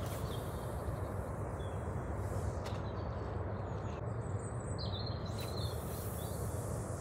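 Outdoor lakeside ambience: a steady low background noise with small birds chirping briefly now and then, clearest about a second in and around five seconds in.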